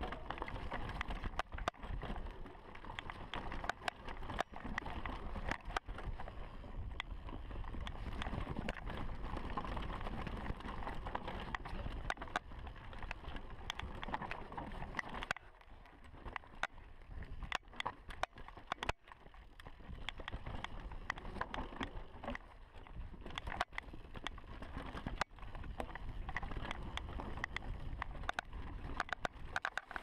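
2015 Giant Reign Advanced mountain bike descending a dirt singletrack: a steady noisy rumble of tyres on the trail, cut through all along by frequent sharp clicks. The rumble drops for a couple of seconds about halfway through while the clicks go on.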